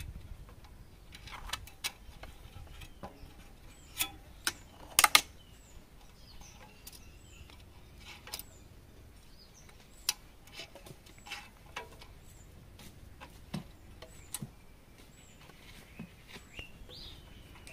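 Birds chirping faintly in short repeated calls, with scattered sharp clicks and knocks over them. The loudest is a quick double knock about five seconds in.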